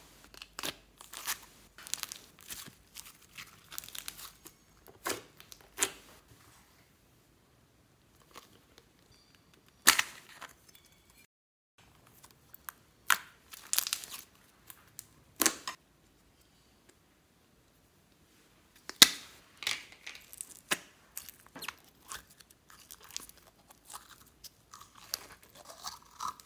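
Slime being pressed, poked and squeezed by hand: sticky, wet pops and clicks in irregular clusters with pauses between. Near the end, a longer squelch as glittery slime is pushed out of a clear plastic tube.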